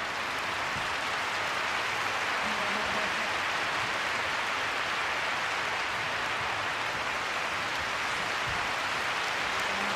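Large arena crowd applauding steadily, a dense even clapping with no let-up.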